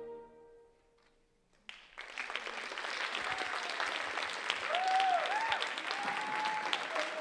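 The last held chord of the recorded music dies away, and after a brief hush a theatre audience bursts into loud applause that keeps going, with whooping cheers rising and falling over the clapping.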